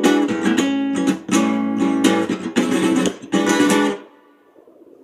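Acoustic guitar strummed in chords, stopping about four seconds in as the song ends.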